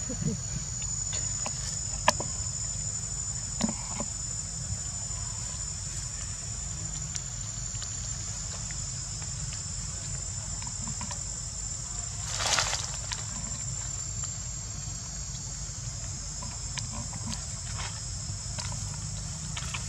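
Steady high-pitched chirring of insects in the trees over a low background rumble, with a few sharp clicks and a short rustle about twelve seconds in.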